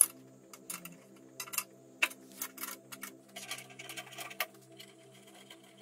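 Irregular sharp metal clicks and clinks of a ring spanner working on the bolts that fix a drill press column to its cast-iron base, with a loud clink right at the start.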